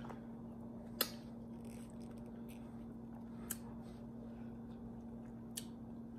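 Quiet eating sounds: a fork clinks once against a glass bowl about a second in, followed by a couple of faint mouth clicks while chewing, over a steady low hum.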